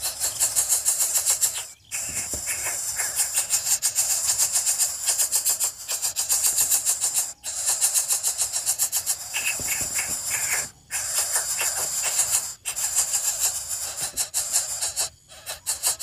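Greater coucal nestlings begging with a rapid, rasping hiss, in bouts of one to three seconds with short breaks between them.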